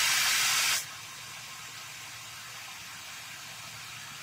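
A loud, even hiss that drops off sharply under a second in, leaving a fainter steady hiss.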